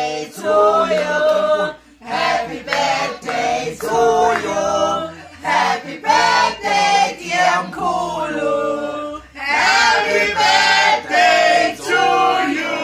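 A family group of men, women and children singing together unaccompanied, in sustained phrases with short breaks between them.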